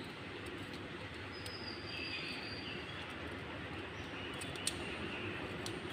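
Quiet background ambience: a steady low noise with a few faint small clicks, and a faint high chirp, like a distant bird, about two seconds in.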